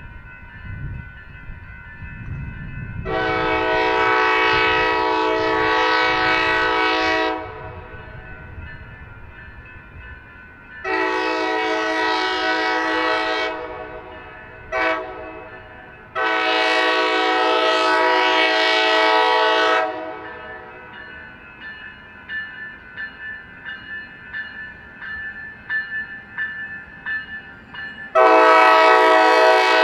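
Locomotive air horn sounding the grade-crossing pattern: two long blasts, a short one and a long one, then a fresh long blast begins near the end. Between and after the blasts, train wheels click over rail joints.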